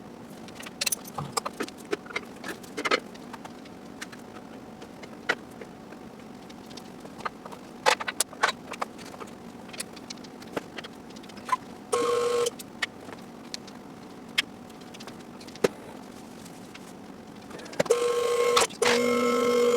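Scattered sharp clicks and knocks of tools and parts being handled while working on the car's suspension, with a short pitched tone about twelve seconds in and a steady pitched whine that starts near the end.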